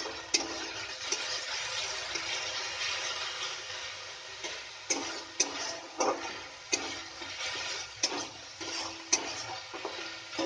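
Onion, ginger and garlic paste with ground spices sizzling in oil in a metal kadai while it is sautéed, with a flat metal spatula scraping and knocking against the pan in irregular strokes, some leaving a brief metallic ring.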